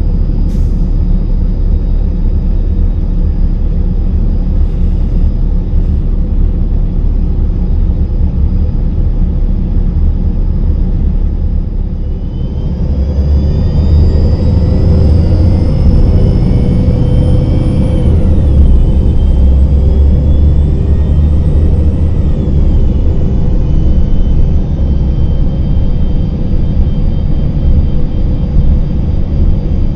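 Cummins ISM diesel engine of a 2000 Gillig Phantom transit bus, heard from inside the cabin, idling steadily at first. About twelve seconds in it starts to accelerate: the engine note and a high whine rise together, then drop back at the Voith automatic transmission's upshifts, twice.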